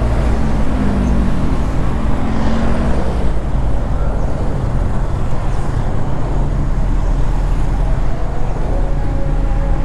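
A moving bus heard from its roof: a steady, loud low rumble of engine, road and wind.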